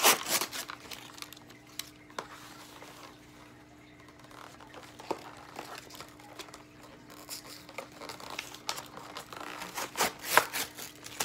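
Cardboard packaging insert crinkling and rustling as it is bent and pulled at by hand, with sharp crackly bursts right at the start and again near the end.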